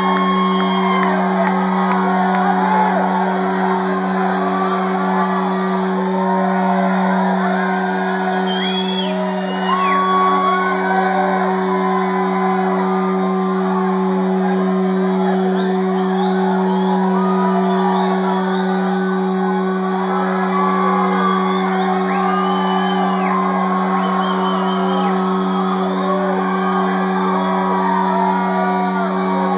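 Rock concert crowd cheering, shouting and whooping over a steady low droning tone held from the stage.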